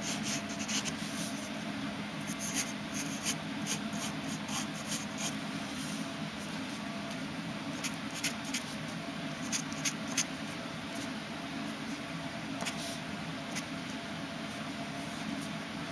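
Wooden pencil scratching on paper in short, quick strokes while sketching, over a steady low hum; the strokes thin out near the end.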